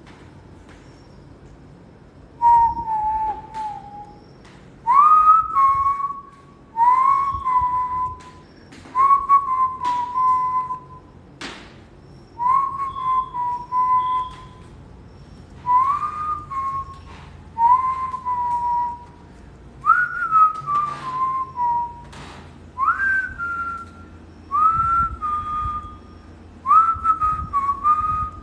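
Whistling: about a dozen short whistled phrases, one every two seconds or so, each sliding up into a held note and then dipping a little. It starts a couple of seconds in.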